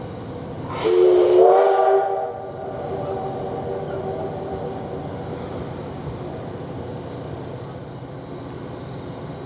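Steam whistle of the C57 1 steam locomotive, sounded once: a rush of steam about a second in, then a steady whistle tone for about a second and a half that dies away over the next few seconds. Steady noise of the slowly moving train runs underneath.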